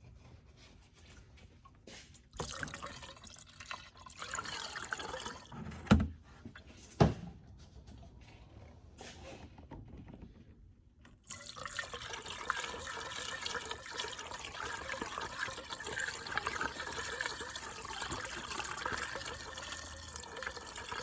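Handling noise with two sharp knocks about six and seven seconds in, then, from about halfway through, windshield washer fluid poured steadily from a jug into the reservoir.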